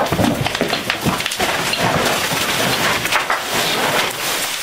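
Fire hose with a smoothbore nozzle flowing water onto a burning room: a loud, steady rushing hiss of the stream striking the fire.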